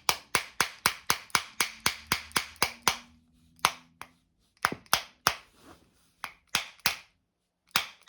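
A skate T-tool tapped repeatedly against the axle of an MK Xle skateboard truck, driving the axle through a tight bushing fit. Sharp quick taps, about four a second, with short breaks about three seconds in and shortly before the end.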